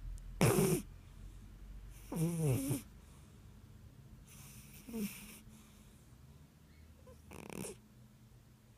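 Burmese cat snoring in its sleep: four snores about two and a half seconds apart, some with a pitched tone that rises and falls.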